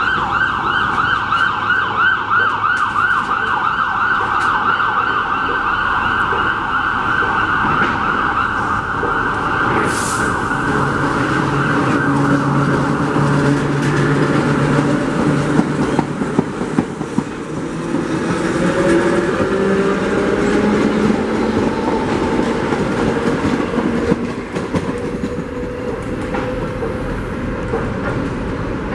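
Vintage R1-9 subway train running along the station platform: a high, wavering squeal from the wheels for about the first ten seconds, then the rumble of the passing cars with a motor whine that rises in pitch about two-thirds of the way through.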